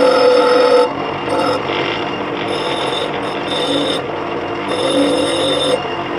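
Small bench grinder running with a square nail held against its wheel: a steady motor whine under a rasping grind that swells and eases as the nail is pressed on and moved.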